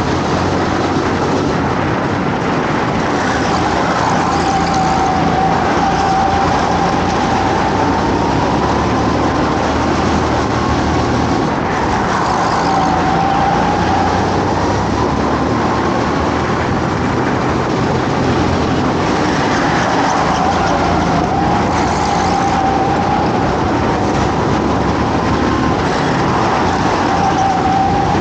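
Go-kart engine heard onboard while racing, its pitch climbing on the straights and dropping back into the corners several times, over a steady rush of engine and track noise.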